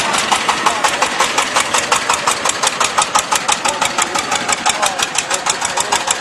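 An engine running with an even, rapid knock, about seven beats a second.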